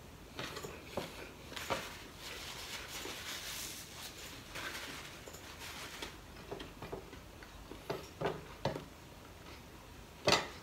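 Close-up eating sounds from a man eating with his hands: chewing and small wet mouth clicks, with fingers working rice on a plate. A louder click comes near the end.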